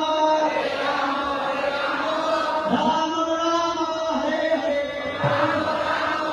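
A large crowd of devotees chanting a kirtan together in unison, many voices on long held notes.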